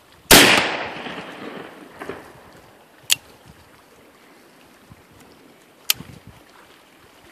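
A single shot from an Uberti 1851 Colt Navy replica, a .36 cap-and-ball revolver loaded with Pyrodex, its report dying away over about two seconds. Two sharp clicks follow, about three seconds apart.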